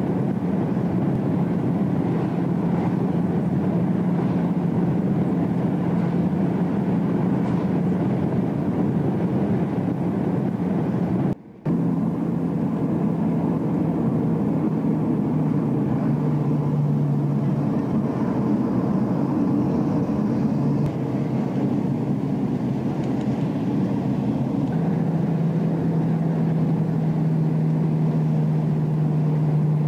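Car engine and road noise heard from inside the cabin while driving: a steady drone whose pitch dips slightly about sixteen seconds in and again near the end. The sound cuts out for a moment about eleven seconds in.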